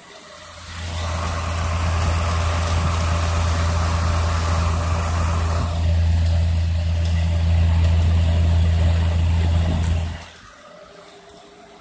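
Vintage Rex Cole hassock fan running, heard close up at the grille: a loud, steady, low motor hum with a rush of air. It swells in about a second in and drops away suddenly near the end.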